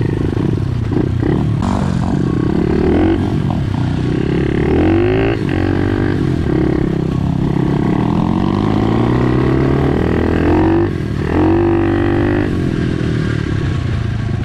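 SSR pit bike engine running under load as it is ridden over rough grass, its pitch climbing and falling back several times with the throttle, with brief dips where the throttle is let off.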